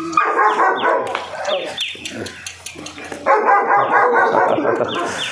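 German Shepherd puppy barking excitedly, in short falling yelps, at its owner's return.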